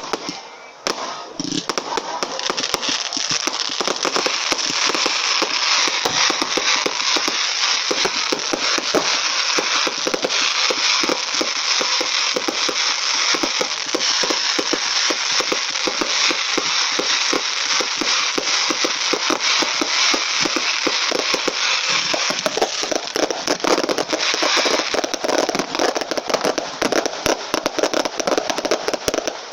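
Fireworks crackling: a dense, unbroken barrage of rapid small pops and crackles that starts about a second and a half in and keeps going.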